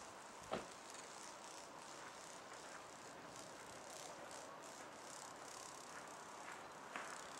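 Faint, steady background hiss with no distinct source, broken by a single soft thump about half a second in and a couple of light clicks near the end.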